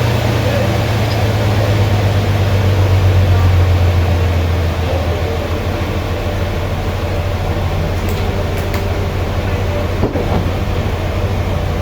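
Sawmill machinery running steadily with a strong low hum and a continuous mechanical din, with a few faint clicks in the second half.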